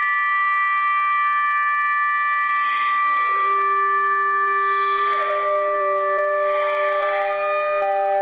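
Electronic emergency-alert (EAS-style) alarm tone: several steady tones sounding together as a chord. Its pitch shifts lower over about three to five seconds in, as lower tones come in.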